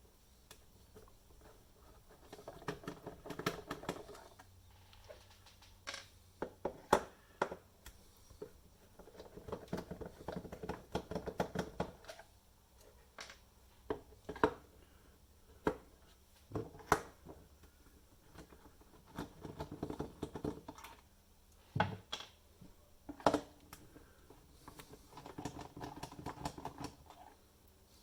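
Odd-headed screws being undone from an induction cooker's casing with a screwdriver: four spells of grinding, rasping turning of a few seconds each, between sharp clicks and taps of the tool and loose screws.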